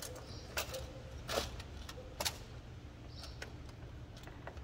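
Short clicks and knocks of Ford C-Max lithium battery cells being shifted by hand and pushed into place, a few sharp ones standing out in the first half, over a low steady hum.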